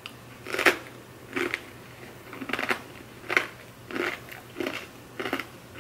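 A person chewing a crunchy pomegranate crisp cracker topped with dill salmon dip and smoked salmon, with a crunch about every three-quarters of a second, around seven in all.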